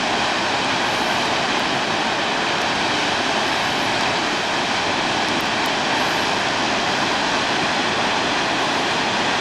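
Large volume of water rushing steadily from a concrete gravity dam's flood release, discharged because of high inflow from a typhoon.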